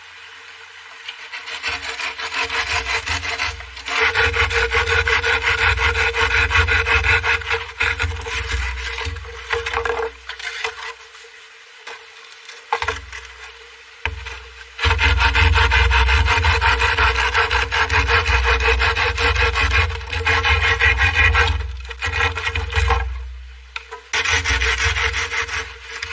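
A hand tool working wood in quick back-and-forth rasping strokes, as in sawing or scraping timber. The strokes come in two long bouts with a pause in the middle, then a shorter bout near the end.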